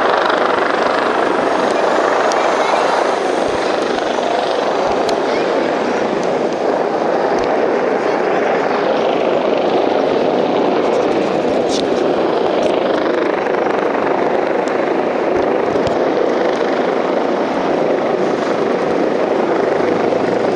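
Police helicopter flying low overhead, its rotors and engine making a loud, steady drone.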